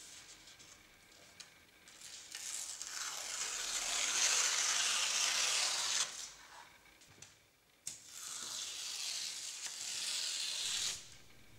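Paper torn slowly by hand in two long, crackling rips, each lasting three to four seconds: the first starts about two seconds in, the second about eight seconds in.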